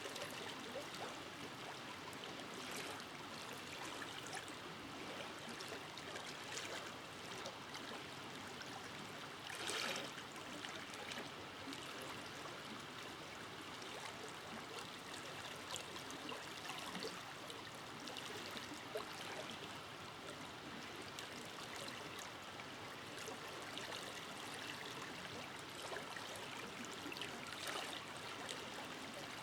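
Forest river flowing steadily over rocks: a continuous rushing and burbling of water with small splashes, one a little louder about ten seconds in.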